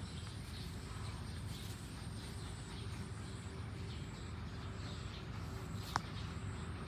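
Rural outdoor ambience: a steady low rumble under a thin, high insect trill that comes and goes, with one sharp click near the end.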